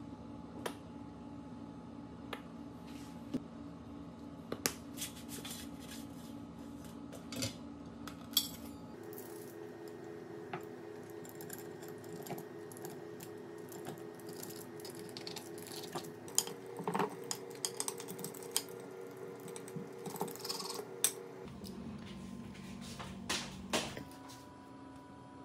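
Kitchen handling sounds: scattered clicks and clinks of a metal pizza wheel and utensils against a ceramic plate and baking tray as a crisp tortilla pizza is cut, over a low steady hum.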